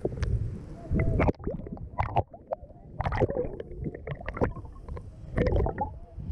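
Churning water and bubbles heard through a camera held underwater: bursts of low, muffled rumble with gurgling pops and bubble blips, coming and going as the camera is swept along at the surface.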